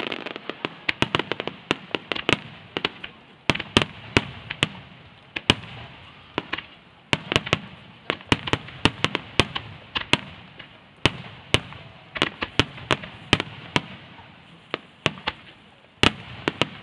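A rapid, irregular barrage of aerial firework shells bursting: dozens of sharp bangs, at times several a second.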